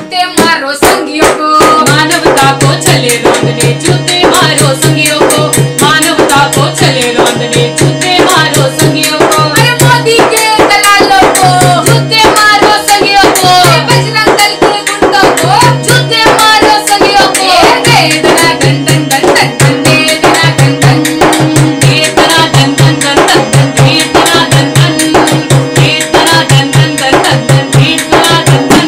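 Women singing a song to harmonium and a hand-beaten drum with a steady, even beat; the harmonium holds sustained notes under the voices.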